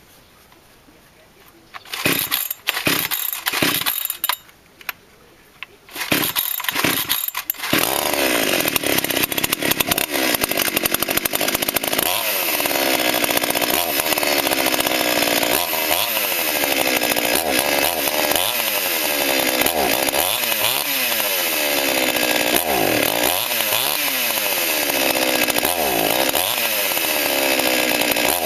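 Forward FGS-5204 two-stroke petrol chainsaw engine sputtering in short bursts with a pause, then running continuously from about eight seconds in. Its pitch repeatedly dips and rises every couple of seconds.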